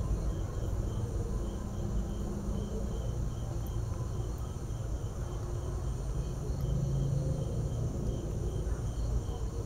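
A cricket chirping steadily, about three short chirps a second, over a low steady rumble.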